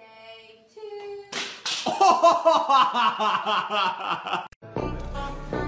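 A few held sung notes, then a sudden noisy burst and about three seconds of loud laughter. A different music track with a steady beat starts near the end.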